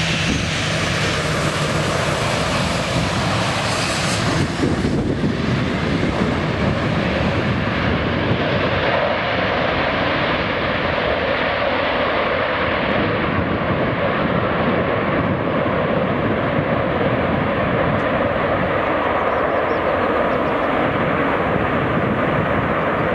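A Boeing 747 freighter's four jet engines make a loud, steady rushing noise as the aircraft moves along the runway. The high hiss in it fades from about five seconds in.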